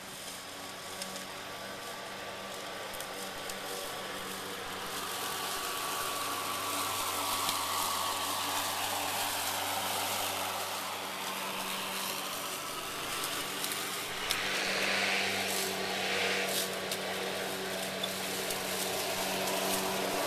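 RYOBI 40V brushless cordless lawn mower running under load, its electric motor and spinning blade cutting tall, thick grass with a steady hum and a faint whine. A few sharp ticks and a burst of hiss come about fifteen seconds in.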